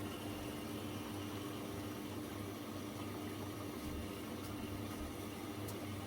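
Zanussi FL984CN washing machine running with a steady low hum and a faint steady tone.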